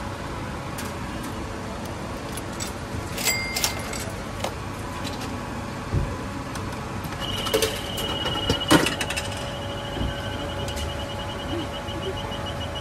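Coins clinking with a ringing tone as they drop into a retro drink vending machine, then a thud. The machine's prize roulette starts beeping rapidly, and the beeps slow and space out until they stop; a loud clunk comes partway through as the drink drops. A steady machine hum runs underneath.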